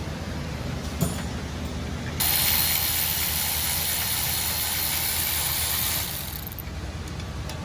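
A single click, then an air ratchet running a bolt out for about four seconds: a steady, hissing, high-pitched run that starts suddenly and then dies away.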